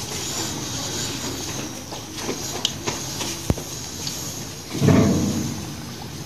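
Batter-dipped potato slices frying in hot ghee in a wok: a steady sizzle with a few light clicks, swelling louder about five seconds in as another slice goes into the fat.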